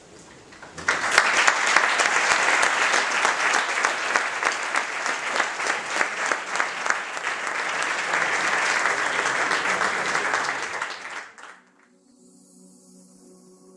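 Audience applauding, starting about a second in and cutting off abruptly near the end, followed by quiet ambient music with long held tones.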